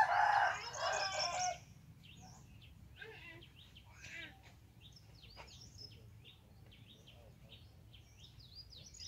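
A rooster crowing once at the start, a loud call lasting about a second and a half, followed by scattered faint small-bird chirps and a short trilled call near the end.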